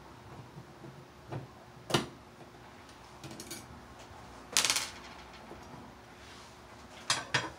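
Screwdriver and screws clicking against a metal light-switch cover plate as it is unscrewed and taken off the wall: a couple of sharp clicks, a short metallic rattle about halfway through, then two quick clicks near the end.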